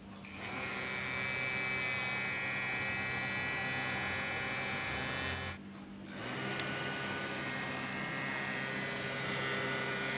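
Small DC-motor cooling fan running with a steady hum and a high whine. It dies away about five and a half seconds in, then spins back up and runs steady again.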